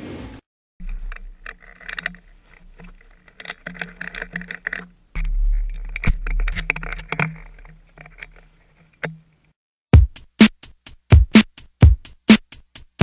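Electronic background music: a quiet, sparse opening, then a steady drum-machine beat that comes in loud about ten seconds in.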